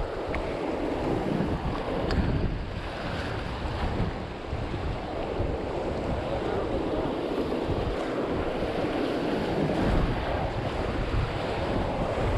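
River current rushing around a raft, with wind noise on the microphone.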